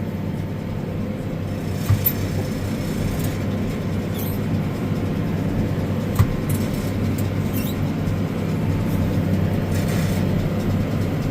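Tractor engine running steadily under load while pulling a round baler through dry hay, with a steady machine hum and a couple of short knocks.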